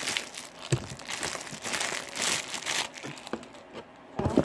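Hands squishing and stretching wet jiggly slime, a dense sticky crackling and popping for about three seconds, then quieter, with a sharp snap near the end.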